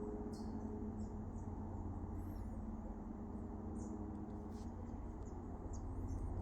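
Birds chirping: scattered short, high-pitched chirps and brief curving notes, a few a second. Under them runs a steady low rumble, and a low humming tone fades away over the first five seconds or so.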